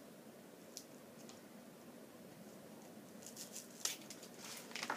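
Faint snips of scissors and rustling of packaging as sheer ribbon is cut free: a couple of light clicks about a second in, then a cluster of quick snips and crinkles over the last two seconds.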